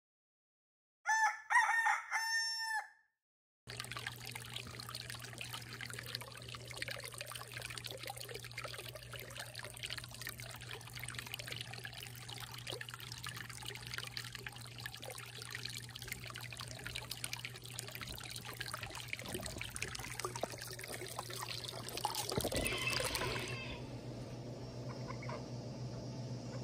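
A rooster crows once, clearly and with nothing behind it, in three joined pieces. Then, after a short gap, a small stream trickles and splashes over rocks. The water grows louder for a moment near the end and then gives way to quieter outdoor ambience.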